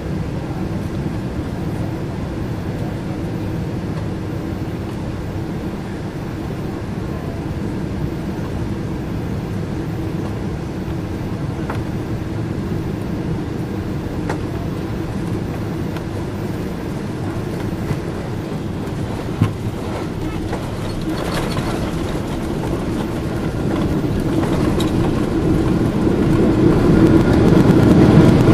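Cabin noise of a Boeing 777-300ER on final approach: a steady rush of airflow and the hum of its GE90 engines. About two-thirds of the way through, a single thump as the main gear touches down. The noise then grows steadily louder and harsher as the jet rolls out on the runway with its spoilers raised.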